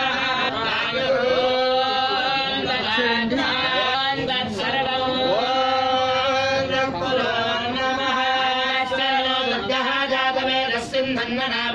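Voices chanting a devotional Hindu hymn or mantra in long, held notes, with a few light knocks.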